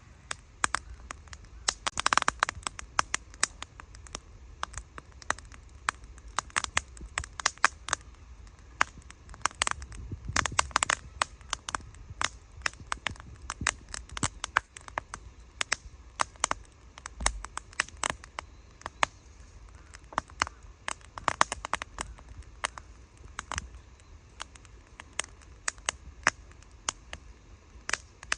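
Wood fire crackling, with many sharp, irregular pops. The popping is busiest about two seconds in and again around ten seconds.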